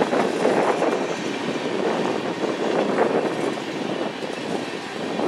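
Freight train tank cars rolling past: a steady rumble of steel wheels on the rails, with a few clacks as the wheels cross rail joints.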